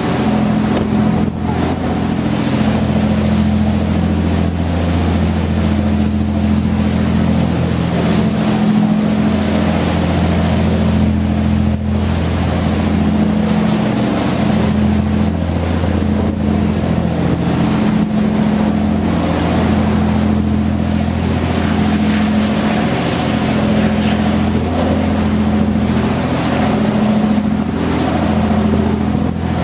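A boat's engine running steadily with a low drone, under a steady hiss of wind and water.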